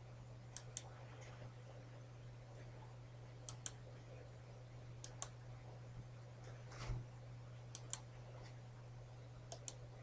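Computer mouse button clicked in quick pairs of sharp clicks, five times, over a steady low hum, with a soft thump about seven seconds in.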